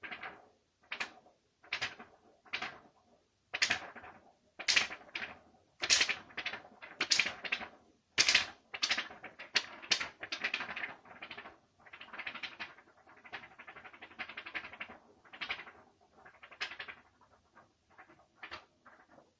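A card scraped repeatedly against a surface: a run of short scratchy strokes, one to two a second, loudest around the middle and fainter toward the end.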